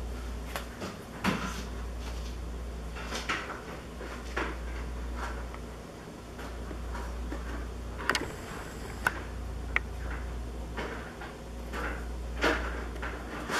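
Pet hedgehog moving about beside its food bowl on a plastic floor: scattered small scrapes, clicks and knocks at irregular moments, over a steady low hum.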